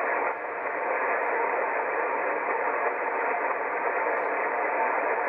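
Steady hiss of band static from a shortwave receiver tuned to 40-metre upper sideband, heard between transmissions.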